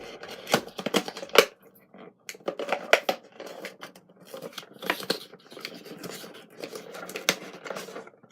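Small die-cast figures and their plastic packaging being handled and worked loose by hand: irregular clicks, taps and scrapes.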